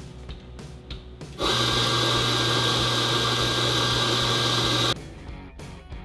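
Electric espresso grinder grinding coffee beans into a portafilter: a steady motor whir with a low hum. It starts about a second and a half in and stops abruptly about three and a half seconds later.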